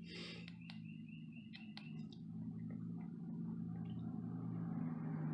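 Button clicks on a handheld battery tester as menu options are selected and a test is started, over a steady low hum. A haze of noise grows steadily louder through the second half.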